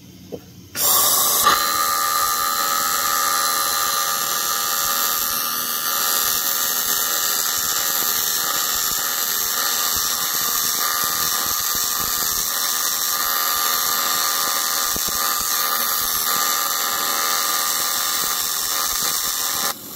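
AC TIG welding arc on an aluminium LS cylinder head, buzzing steadily as 4643 aluminium filler rod is added to build up a repair. The arc strikes about a second in and cuts off just before the end.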